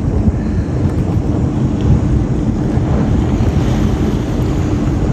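Sea-Doo jet ski engine running, under a loud, steady low rumble of wind on the microphone.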